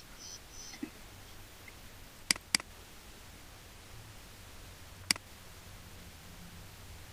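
Computer mouse clicking: a quick pair of clicks about two and a half seconds in, then a single click about five seconds in, over a faint low hum.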